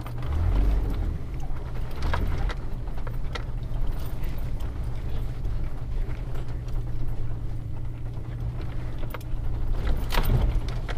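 A 1999 Ford Econoline E350 van with a V10 engine being driven slowly over a rough sandy trail. There is a steady low engine and tyre rumble, with a few sharp knocks as it goes over bumps, one about two seconds in and more near the end.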